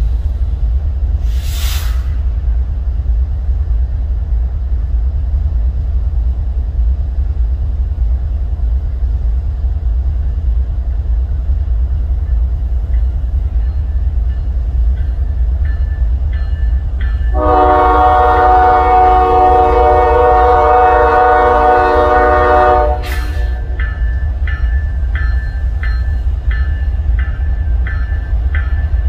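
Canadian Pacific diesel freight locomotive approaching over a steady low rumble. Its bell starts ringing in evenly spaced strokes about halfway through, and past the middle it sounds one long chord horn blast of about five seconds, the loudest sound here.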